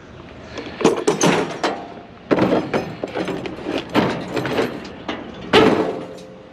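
Objects in a scrap pile being handled and moved: a run of clattering knocks and rattles, with a few louder strikes about one, two and a half, four and five and a half seconds in.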